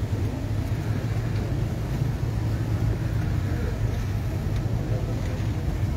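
Idling vehicle engine, a steady low rumble.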